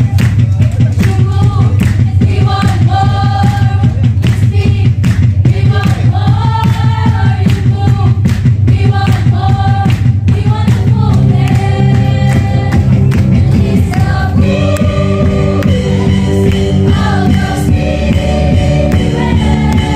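Live gospel praise band playing, with drums, electric guitars and keyboard, while a group of singers sings the melody over a steady drum beat.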